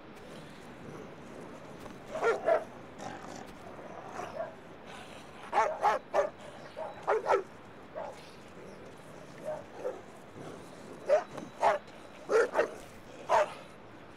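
A dog barking repeatedly in short groups of two or three barks.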